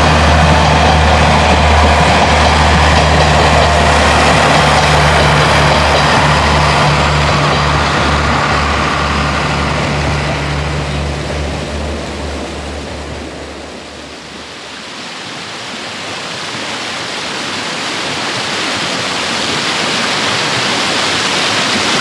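KiHa 40-series diesel railcar running past with its engine drumming low and steady, then fading away over about twelve seconds as it leaves. A level-crossing bell rings during the first few seconds. A steady hiss builds again in the last several seconds.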